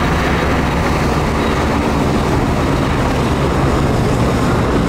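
AgustaWestland AW101 Merlin helicopter flying past, with steady rotor and engine noise.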